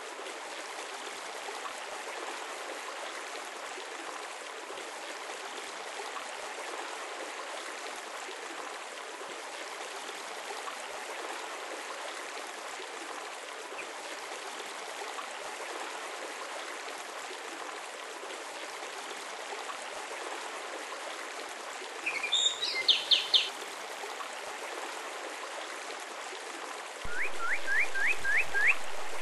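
Steady rush of running water, like a small stream or waterfall. Birds chirp briefly about three-quarters of the way through, and near the end a bird gives a quick run of rising chirps.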